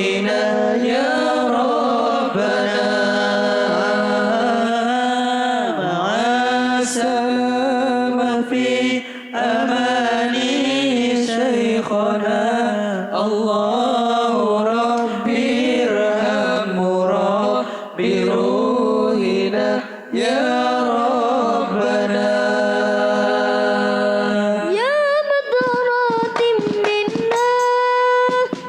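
Melismatic sholawat singing with long, wavering, ornamented notes over a steady low held drone. Near the end a new, higher vocal line slides up into a sustained note.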